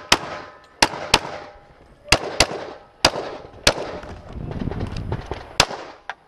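About eight pistol shots fired in a rapid string, several as quick pairs about a third of a second apart, each with a short echo trailing after it.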